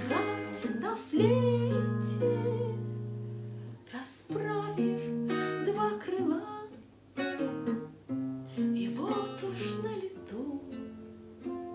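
Instrumental passage of a song: plucked acoustic strings playing notes under a gliding melody line, tapering off toward the end.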